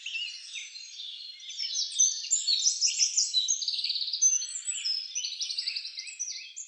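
Several songbirds singing at once: a dense chorus of overlapping chirps, whistles and rapid trills, growing busier and louder about two seconds in.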